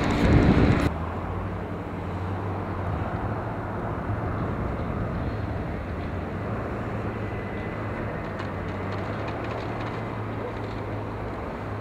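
Loud wind buffeting the microphone for about the first second, cut off suddenly, then a steady low mechanical hum over a noisy outdoor background.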